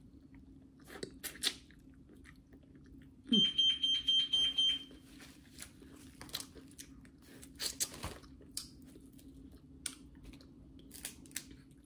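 Close mouth sounds of a person eating snow crab: chewing and lip smacking, with scattered small clicks. About three seconds in, a high electronic beep sounds for about a second and a half, louder than the eating. A low steady hum runs underneath.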